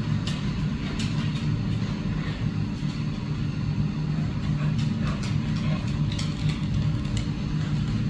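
Robot vacuum running: a steady low motor hum, with scattered light clicks and ticks.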